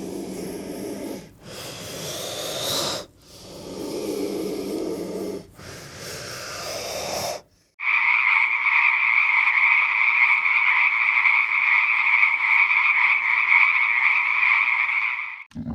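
Animal calls: four breathy, rasping calls separated by short pauses, then a steady, unbroken droning call held at one pitch for about eight seconds that cuts off suddenly.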